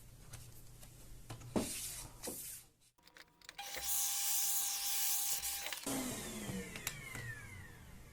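A few faint clicks, then a small laptop cooling fan whirring loudly for about two seconds and spinning down with a falling pitch, as happens when the laptop is powered on.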